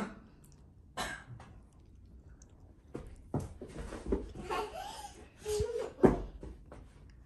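A young child's short breathy vocal sounds and brief murmurs, with scattered knocks and one sharp thump about six seconds in.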